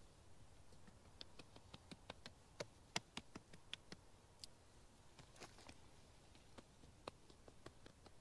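Faint, irregular small clicks and ticks, several a second, with a louder one about three seconds in, against a quiet background.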